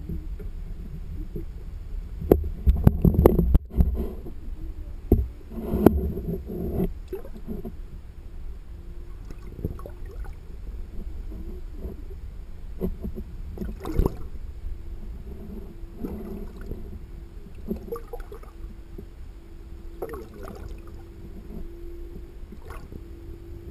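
Muffled underwater sound through a submerged camera: a low rumble of moving water with a steady hum, broken by knocks and thumps. The loudest are clustered a couple of seconds in and again around six seconds, with fainter ones later.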